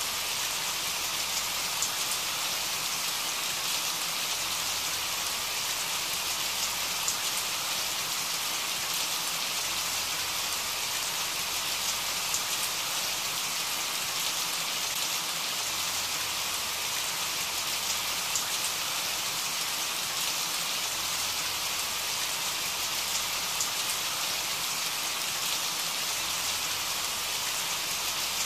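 Steady rain: an even hiss with a few faint drop ticks scattered through it.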